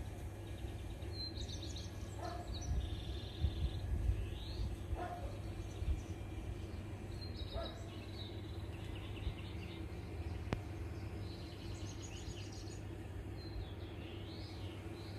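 Small birds chirping and twittering in short, repeated runs of high notes, over a steady low background rumble.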